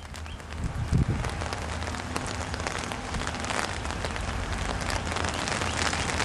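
Rain falling steadily, with many sharp individual drop taps over a steady low hum.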